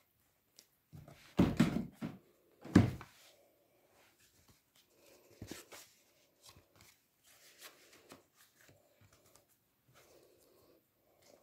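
A handmade scrapbook of thick cardboard and paper pages being handled and leafed through. Two loud thumps come a little over a second apart near the start, followed by soft paper rustles and light taps.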